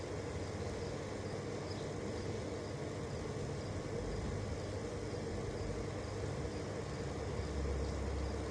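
Steady low rumble and hiss of a stove burner heating a pot of melting ghee, the rumble swelling a little about halfway and again near the end.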